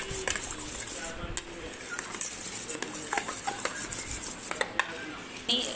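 A utensil stirring green-tinted whipped-cream frosting in a bowl, with irregular clinks and scrapes against the bowl as the food colouring is mixed in.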